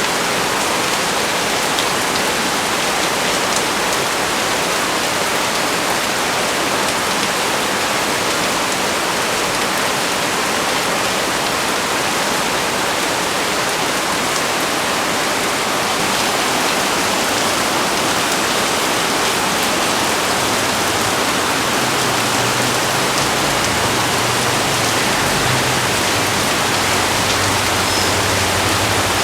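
Heavy rain pouring down steadily, a dense, even hiss with no letup. About two-thirds of the way through, a faint low hum comes in underneath.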